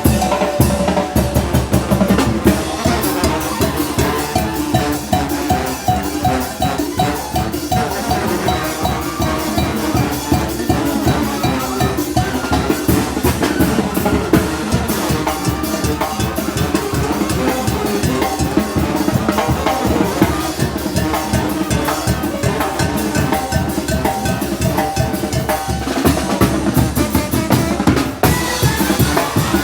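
Mexican brass banda playing a driving muertero rhythm: bass drum, snare and cymbals beating fast and steady under sustained brass lines.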